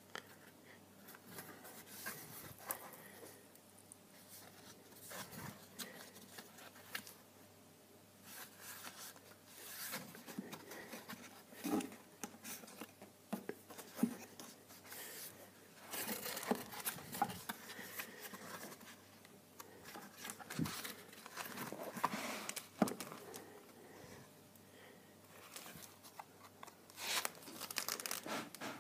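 Stiff paper pages of a handmade book being turned by hand: irregular rustling and crinkling with small taps and clicks, with louder page flips about halfway through and near the end.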